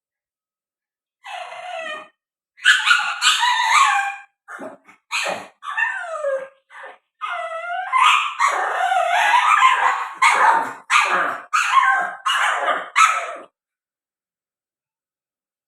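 Pug barking, whining and howling in a string of bursts, some calls sliding up and down in pitch: a tantrum demanding a snack. It starts about a second in and stops a couple of seconds before the end.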